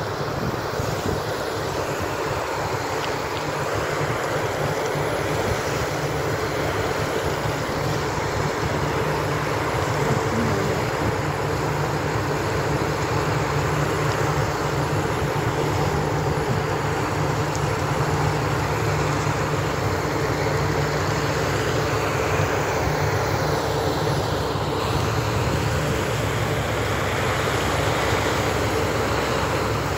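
Newly struck water well gushing, a tall jet of water and air blasting out of the borehole with a steady rushing roar, and a steady engine hum underneath.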